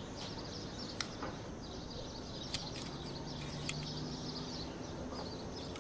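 Quiet workshop ambience: a steady low background hiss with faint bird chirps and a few light, sharp clicks.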